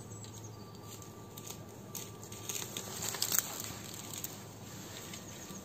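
Close crackling and rustling handling noise, a run of sharp clicks that is thickest and loudest about two and a half to three and a half seconds in, over a faint steady hum.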